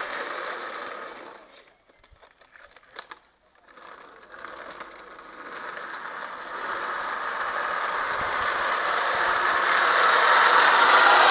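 Wooden soapbox cart's wheels rattling and rumbling on asphalt as it rolls downhill. The noise dies away to a lull about two seconds in, then returns and grows steadily louder as the cart approaches, loudest near the end.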